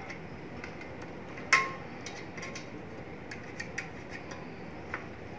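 Small metal clicks and scrapes of a screwdriver prying at a latch inside a laser printer's sheet-metal frame, with one sharper metallic clink about a second and a half in.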